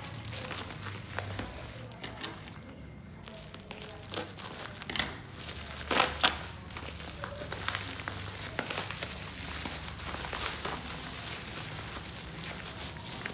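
Packaging crinkling and rustling as it is handled and opened, with a few louder sharp rustles in the middle.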